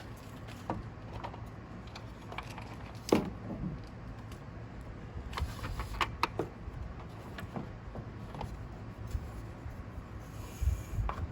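Scattered clicks and knocks from roof rack parts being handled and fitted on a pickup's roof, with a louder knock about three seconds in and a couple of dull thumps near the end, over a low steady hum.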